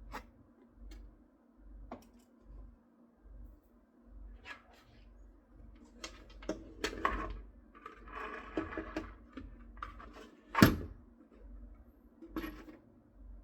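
Scattered small clicks and knocks of parts being handled, with a brief rattling patch past the middle and one sharp knock about two-thirds of the way through.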